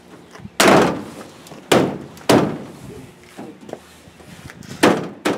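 Bed rail cap on a Ford F250 pickup bed being struck down by hand to seat it onto the bed side, about five sharp knocks at uneven intervals.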